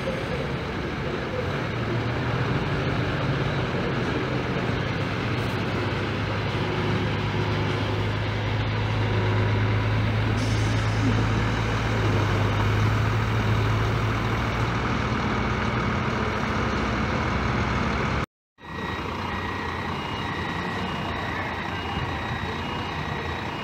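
Diesel engine of a bus running as it pulls slowly away through standing water, its hum strongest in the middle. After a cut, a vehicle's reversing alarm beeps repeatedly.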